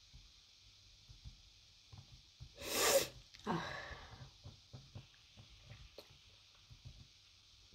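A woman sneezes once about three seconds in: one sharp, loud burst followed by a shorter breathy tail that falls away.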